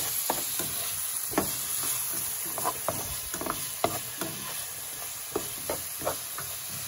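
Vegetables and olives sizzling in a metal frying pan while a spatula stirs them, with irregular scrapes and taps of the spatula against the pan over a steady frying hiss.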